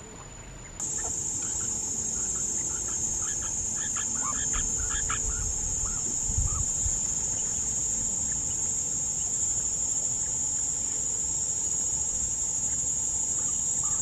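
A steady, high-pitched drone of insects, with a run of short, soft chirps from quail about three to five seconds in.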